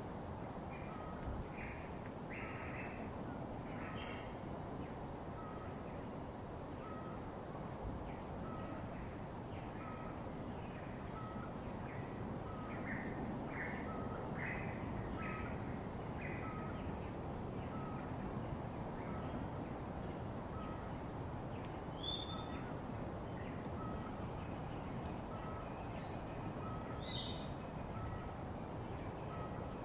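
Birds calling in a tropical forest: a short note repeated steadily a little more than once a second, with clusters of harsher calls in the first few seconds and again around the middle, and two brief higher calls near the end. A steady hiss and a thin, steady high whine run underneath.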